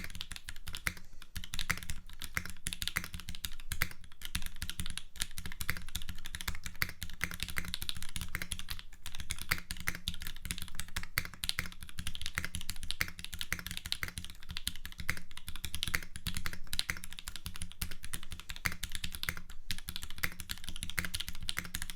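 Continuous typing on a custom mechanical keyboard with lubed, filmed Gateron Ink switches on 60g springs and original Cherry double-shot keycaps: a dense, steady run of key clicks and bottom-out taps.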